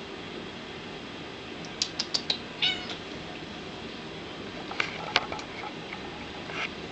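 Domestic cat giving two short, high meows, one about three seconds in and one near the end. A quick run of four sharp clicks comes just before the first meow, and a few more about five seconds in.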